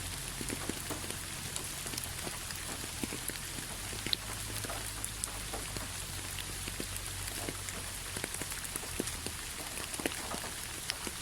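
Steady rain falling, a constant hiss with many scattered individual drops ticking on a surface.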